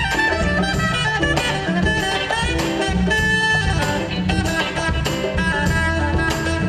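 Live jazz-fusion band playing, with a saxophone running quickly through many notes over electric bass and drums.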